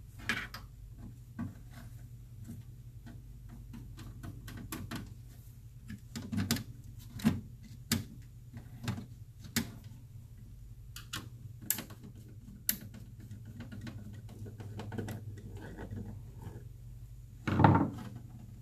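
Scattered clicks, knocks and scrapes of a metal-cased power supply module being handled and pressed into place inside a steel rack-mount cabinet, with one louder knock near the end, over a steady low hum.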